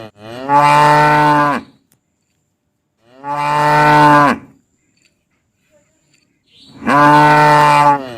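Cow mooing: three long, steady-pitched moos of about a second and a half each, one right at the start, one about three seconds in, and one near the end.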